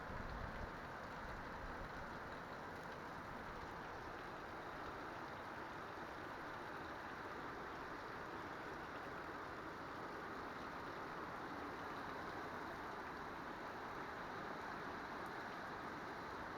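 Heavy rain pouring down in a steady, even hiss: a summer downpour.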